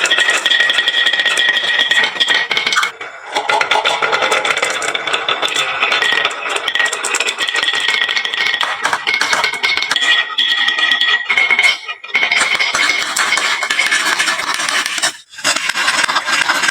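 Many marbles rolling and clattering down a wooden marble-run slope: a dense stream of clicks and rattles over a steady ringing rolling tone, dropping out briefly three times.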